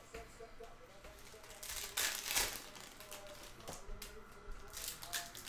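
Foil wrappers of 2021-22 Panini Hoops basketball card packs crinkling as the packs are handled and one is torn open, loudest about two seconds in and again near the end.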